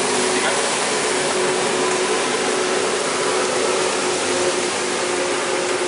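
Steady, even hissing rush from gas burners running under a frying pan and a pasta pot, with faint steady tones in it.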